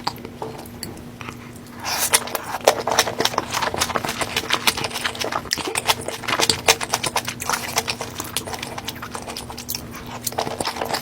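Close-up chewing of crunchy food: dense, irregular crackling crunches that start about two seconds in, over a faint steady hum.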